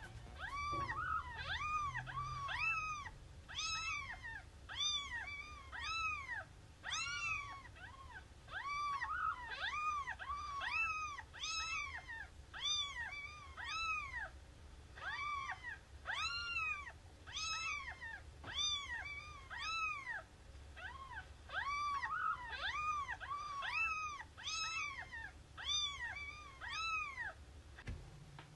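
A cat mewing over and over, about one or two short high-pitched calls a second, each rising then falling in pitch.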